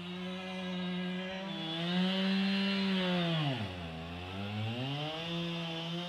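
Two-stroke chainsaw running hard, as used to slab a log. Its pitch sags sharply a little past the middle, to about half, then climbs back up.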